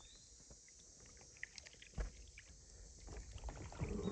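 Kayak gliding on calm water: faint drips and small splashes from the paddle, with one low knock about halfway through and louder water swishing near the end as the paddle strokes.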